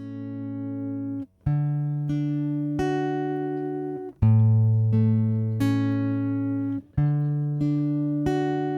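Guitar playing the song's instrumental intro: chords struck and left to ring, changing every second or so, with a short break every few seconds before the next phrase.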